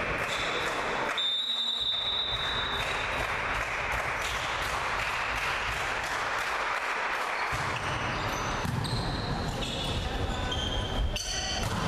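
Indoor volleyball game sounds in a gym: ball hits and sneakers squeaking on the court floor, with players' voices. There is a brief high whistle about a second in, and a run of squeaks near the end as the rally moves.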